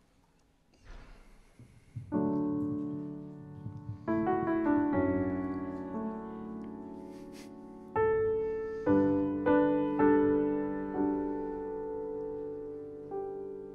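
Digital keyboard playing slow, sustained piano chords, each struck and left to ring and fade before the next: the soothing opening of a ballad before the voice comes in. A short rustle comes just before the first chord.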